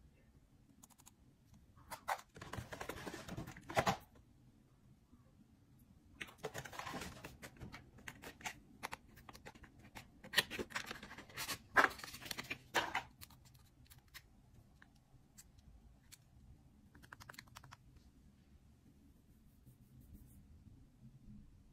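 Close-up handling of cosmetic packaging: scratchy rustling of cardboard boxes being rubbed and slid open, broken by sharp clicks and taps of compact cases. The busiest stretch falls between about two and thirteen seconds in, with a quick run of small clicks a little later and only light handling near the end.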